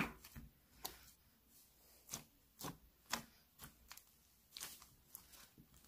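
Slime being pressed and poked with the fingertips: faint, irregular little clicks and pops, about two a second.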